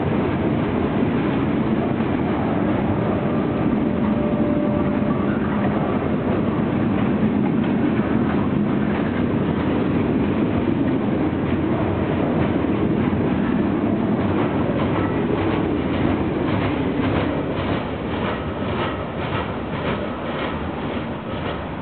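A freight train of loaded stone cars rolling past, with a steady rumble of steel wheels on rail. From about halfway through, a regular clickety-clack of wheels over rail joints, about two to three clacks a second, grows plain while the overall sound eases slightly near the end.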